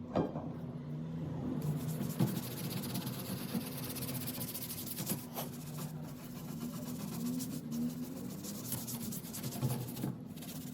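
Steady scratchy rubbing on a wooden cabinet surface, as in hand sanding or wiping, over a low hum, with a few sharp knocks.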